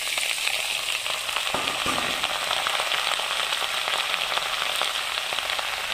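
Food frying in hot oil in a pan: a steady sizzle with many small crackles.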